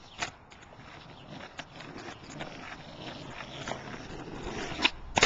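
Skateboard sounds: scattered knocks of the board, a rolling noise that grows louder over the last couple of seconds, and a loud sharp crack near the end.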